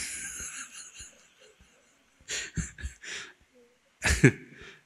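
A person coughing: one sharp cough at the start, a quick run of three short coughs a little past the middle, and a louder, voiced cough near the end.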